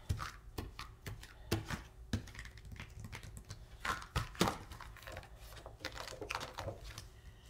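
Irregular light taps and clicks of hands and fingernails handling a plastic Cricut cutting mat on a tabletop, with the mat shifting and being lifted near the end.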